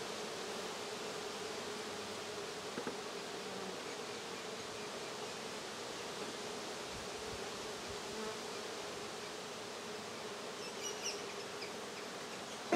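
Saskatraz honey bees buzzing steadily around an open hive: a continuous hum held on one pitch.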